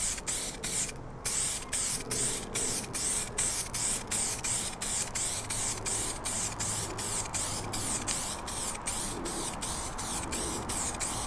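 Aerosol can of clear lacquer hissing as it sprays onto car grilles. The hiss is broken by quick, regular gaps a few times each second, with a longer break about a second in.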